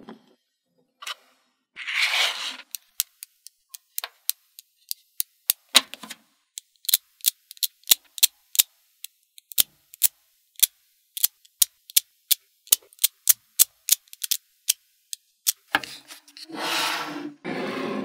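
Small magnetic balls clicking sharply as they are snapped one at a time onto a cluster, a long irregular run of separate clicks. A short scrape comes about two seconds in, and a ringing chime near the end.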